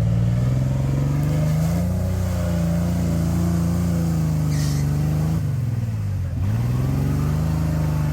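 Off-road Jeep engine running under steady load. Its pitch sags about five and a half seconds in and climbs back a second later. There is a brief hiss about four and a half seconds in.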